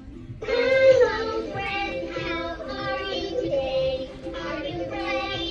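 A Fisher-Price Linkimals electronic toy plays a recorded child-like voice singing a short tune over music. It starts about half a second in, in answer to a number button being pressed.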